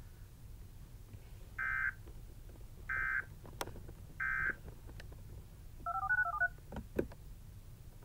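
Three short warbling data bursts about a second apart, the Emergency Alert System end-of-message signal, followed by a quick string of touch-tone (DTMF) tones. A few sharp clicks come near the end, over a low hum.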